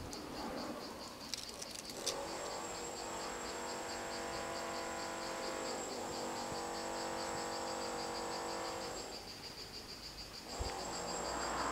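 Level crossing warning bells ringing while the barriers are down: a quick, even chime repeating about three to four times a second, over steady tones that drop out for a moment near the end.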